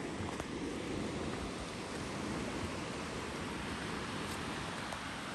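River water rushing steadily, an even hiss without pitch or rhythm.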